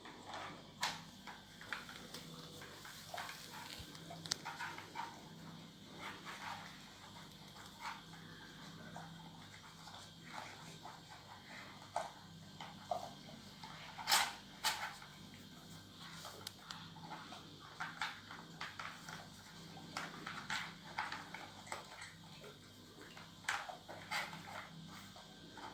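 A dog working a plastic treat-puzzle toy, with short clicks and knocks scattered irregularly throughout and the loudest pair about fourteen seconds in.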